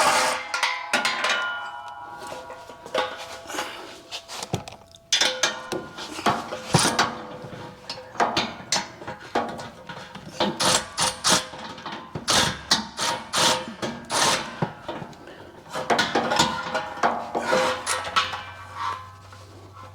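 Metal clanks and knocks of a steel cat-back exhaust muffler being pushed up into place and its flange bolts started by hand, with brief metallic ringing after some of the knocks.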